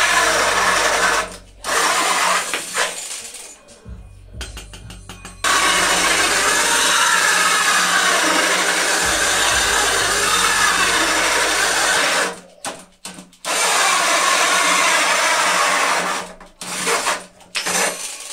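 Cordless drill driving a hole saw through a thin wooden board, grinding and cutting in long runs with several brief stops as the drill is eased off and pressed in again.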